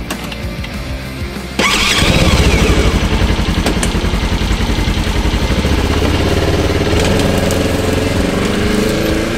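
An engine starts abruptly about a second and a half in and runs with a rapid, even beat.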